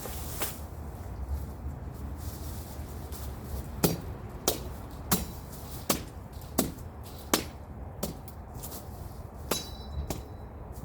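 Machete chopping into brush and branches: a run of about nine sharp strikes, one every half second to second, starting about four seconds in, one near the end leaving a short metallic ring.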